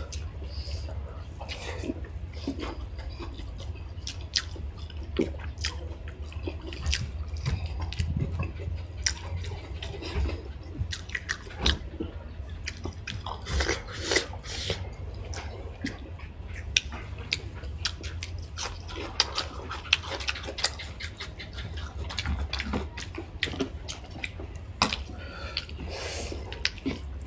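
Close-up eating sounds: chewing, biting and wet mouth smacks on chicken, rice and dal, many short irregular clicks, over a steady low hum.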